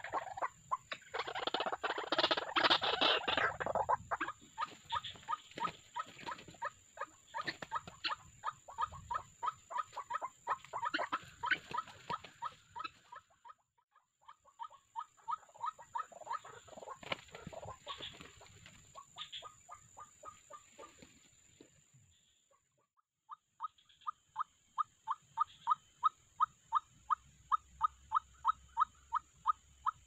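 White-breasted waterhen calling: a short, monotonous note repeated evenly about two to three times a second. About a second in there is a burst of rustling and flapping lasting some three seconds.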